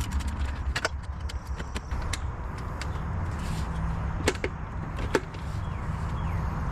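Irregular sharp clicks and clinks of hand tools and metal parts being handled during work on a car, the loudest two about four and five seconds in, over a steady low rumble.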